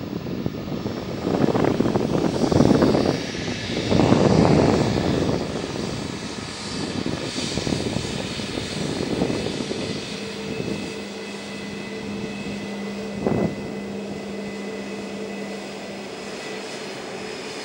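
Airbus A320neo's CFM LEAP-1A turbofan engines running at taxi power: a steady hum with held engine tones and faint high fan whine. During the first five seconds, loud rumbling swells as towed cargo container dollies pass close by, and a single short knock comes about thirteen seconds in.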